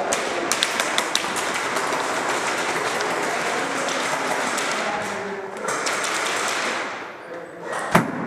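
Airsoft gunfire in a dense, crackling rattle, overlapping shots and BB strikes, with a few sharp clicks about a second in and one loud, sharp crack near the end.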